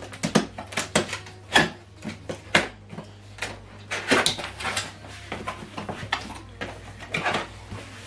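Cardboard box being opened by hand: irregular scrapes, taps and rustles as the top flaps are pried up and pulled back.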